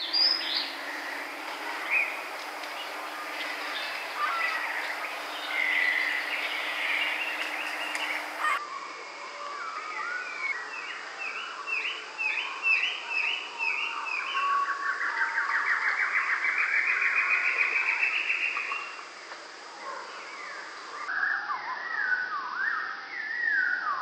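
Several songbirds singing. The first notes are busy and overlapping. They give way to a run of about seven clear slurred notes, then a trill that climbs steadily in pitch for about four seconds, then more slurred phrases near the end.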